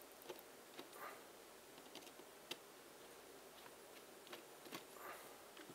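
Faint, scattered ticks and clicks of a small screwdriver working the tiny screws out of an IR remote's case, against near silence.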